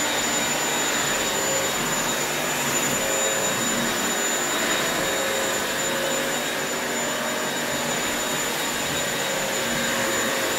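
Bissell upright wet-dry vacuum mop running steadily as it is pushed over a laminate floor: an even rush of motor and suction noise with a thin high whine on top.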